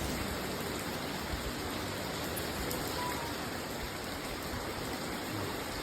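Steady rain falling, a continuous even hiss of water.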